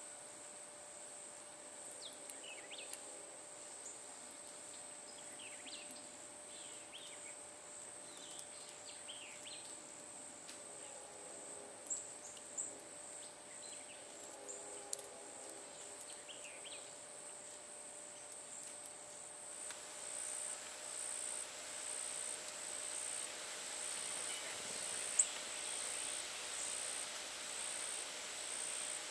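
Steady high-pitched insect trill from the surrounding vegetation, with faint short bird chirps over it in the first two-thirds. Later the insect sound pulses about once a second, and a single sharp click stands out near the end.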